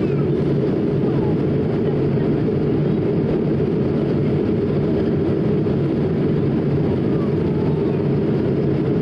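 Steady in-flight cabin roar of an Airbus A220-300, heard from a window seat over the wing: the Pratt & Whitney PW1500G geared turbofans and the rush of air over the fuselage blend into an even, deep noise that holds level without change.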